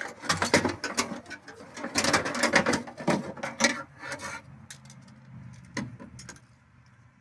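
Rapid clicking and clattering of hard parts being handled, dense for about four seconds, then a few separate clicks, typical of a car door latch and lock mechanism being moved and worked by hand.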